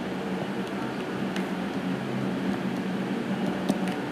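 Steady room hum and hiss, with a few faint scattered ticks of a stylus tapping and writing on a tablet's glass screen.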